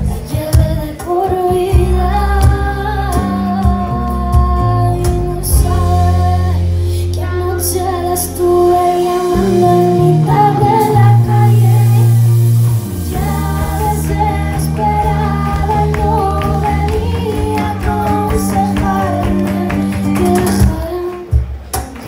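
Live acoustic song: a woman singing over strummed acoustic guitars.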